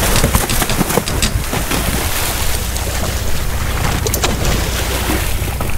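Boat at sea with its engine running steadily underneath a rush of wind and water, broken by many short splashes and buffets.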